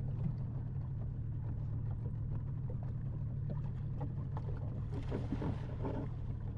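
Low steady rumble of a small boat's idling motor, and about five seconds in a splash as a snorkeler slides over the side into the sea.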